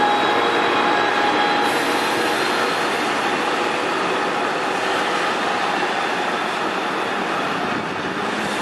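MARC commuter train's bilevel passenger cars passing at speed: a steady rush and rumble of steel wheels on rail. A few faint whining tones in the first second and a half stop, and the noise eases off slowly as the last cars go by.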